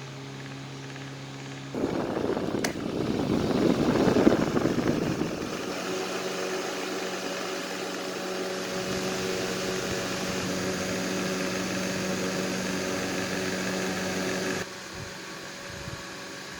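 Vintage Lorenzetti electric fan running with a steady hum. About two seconds in it suddenly gets louder, with a click and a rush of air that swells and then settles into a louder steady hum and rush. Near the end it drops back suddenly to the quieter hum.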